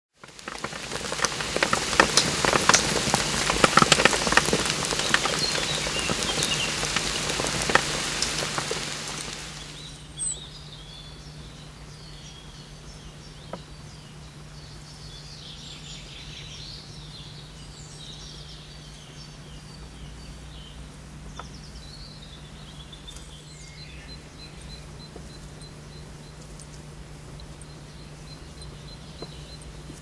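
A loud hiss full of crackles for the first nine seconds or so, then faint chirping birdsong over a low steady hum, with a high, evenly repeating tick near the end.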